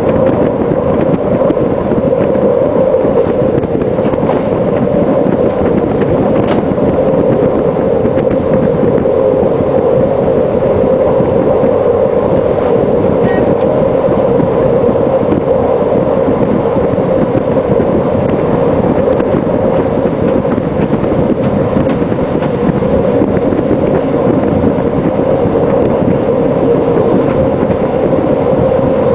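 Running noise of a class 628 diesel multiple unit heard from the driver's cab at speed: a steady, even drone, with a couple of faint clicks from the track.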